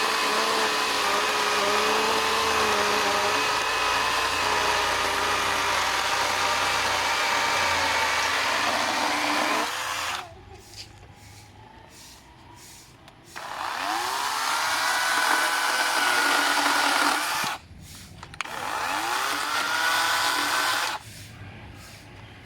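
Cordless brushless chainsaw (DCK KDML250BM) cutting through ketapang wood under load for about ten seconds, then stopping. It is then triggered twice, its electric motor whining up in pitch and running freely for a few seconds each time before cutting off.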